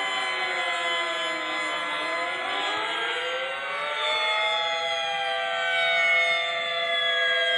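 Allertor and Modulator air raid sirens wailing together, their several tones sliding down to a low point about two seconds in, then climbing back up and holding steady pitches that blend with one another.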